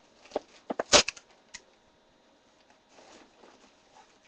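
Packing tape crackling and cardboard rustling as a shipping box is opened: a cluster of short sharp crackles in the first second and a half, loudest about a second in, then faint rustling.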